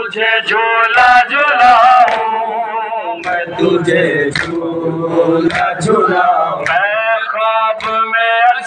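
Male voices chanting a noha, the Shia lament, with sharp slaps of hands on chests (matam) recurring about once a second in time with it.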